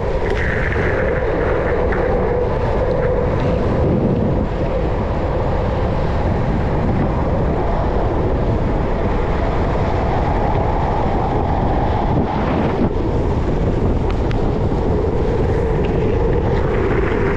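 Wind rushing over a helmet-mounted microphone at downhill speed, over the steady rumble of skateboard wheels rolling on a concrete road.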